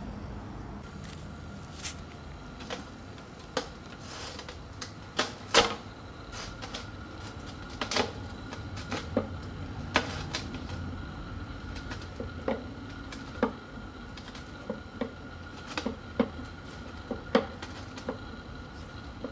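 A 10 mm socket wrench working loose the nuts that hold the shaft to the back of a washing machine's inner drum: irregular sharp metallic clicks and clinks, about one or two a second, the loudest about five and a half and ten seconds in.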